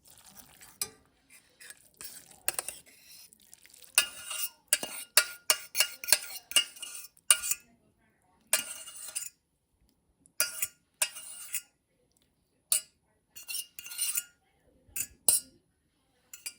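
Dishes and metal cutlery clinking and clattering: a string of sharp knocks, some with a short ringing tone, coming in irregular bunches with brief pauses.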